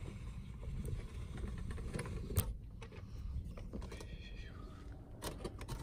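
Low rumble of wind buffeting the microphone, with a few scattered sharp clicks and knocks, the sharpest about two and a half seconds in.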